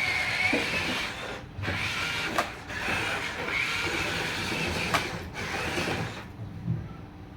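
Small electric motors and gearboxes of a radio-controlled model construction vehicle whining as it drives, with two brief pauses and a few sharp clicks; the whine stops about six seconds in.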